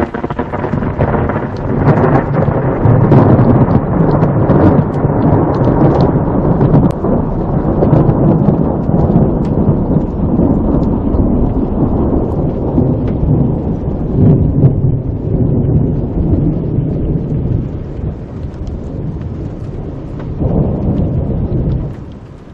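A long peal of thunder that breaks suddenly and rumbles on for about twenty seconds. It swells once more near the end, then dies away.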